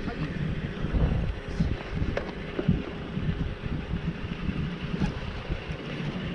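Wind buffeting the action camera's microphone in irregular low rumbling gusts, over a faint steady hum.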